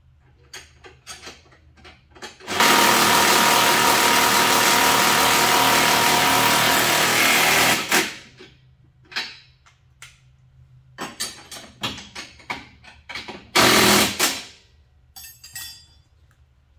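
A power tool runs steadily for about five seconds, then again briefly near the end, between small clicks and knocks of tools and parts being handled while the sidecar is bolted up.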